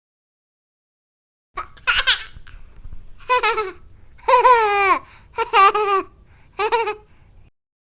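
A baby laughing in about five short high-pitched bursts of gliding pitch, starting about a second and a half in, the longest in the middle.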